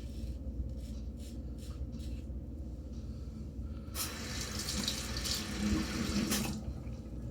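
Faucet running into a sink for about two and a half seconds, starting about four seconds in and shutting off abruptly: the safety razor is being rinsed between shaving passes.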